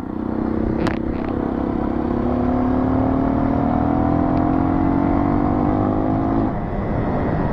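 Dirt bike engine pulling under way, its pitch rising slowly as it gains speed, then easing off near the end. There is a sharp click about a second in.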